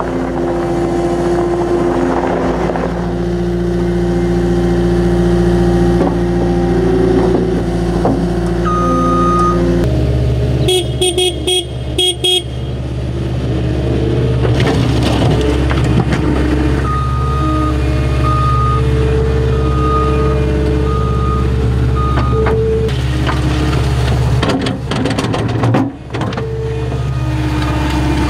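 Caterpillar 242D skid steer's diesel engine running at raised throttle, heard from the cab, its note changing about ten seconds in with a brief burst of clattering just after. A little past halfway, the backup alarm sounds a string of short, evenly spaced beeps.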